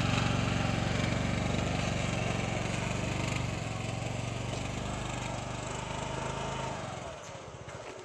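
A small motorcycle engine running steadily, then winding down and dying about seven seconds in: it has stalled, taken by the riders for breaking down again.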